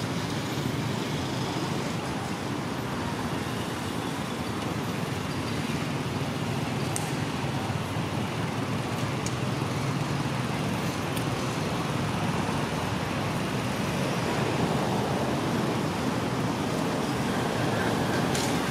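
Steady outdoor background noise with a low rumble, and a few faint ticks scattered through it.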